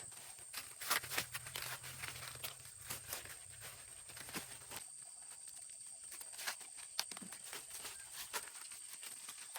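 Irregular clicks and light knocks, a few each second, over a faint steady high-pitched tone. A low hum stops about halfway through.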